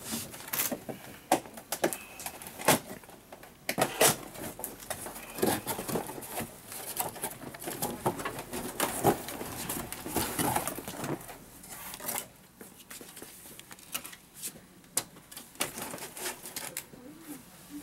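A cardboard box being opened and a Telesteps telescopic aluminium ladder pulled out of it: irregular knocks and clacks with scraping and rustling of cardboard.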